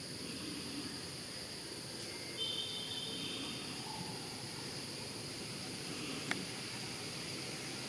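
Forest ambience with insects buzzing steadily at a constant high pitch. A short high chirp comes about two and a half seconds in, and a single sharp click just after six seconds.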